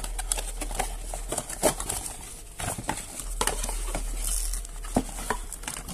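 Cardboard packaging being handled as the inner tray of a TV-box carton is lifted out, with scattered taps, scrapes and light knocks. There is a brief rustle about four and a half seconds in, over a low steady hum.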